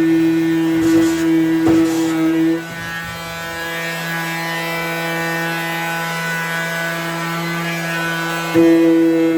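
Electric sander running on wood with a steady, even-pitched hum. A couple of brief knocks sound in the first two seconds. Its sound drops and gets quieter about two and a half seconds in, then jumps back louder near the end.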